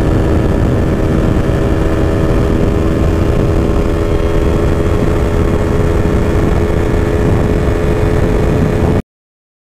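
Yamaha R3's parallel-twin engine running at a steady pitch while riding, under heavy wind rush on a helmet-mounted camera. The sound cuts off abruptly near the end.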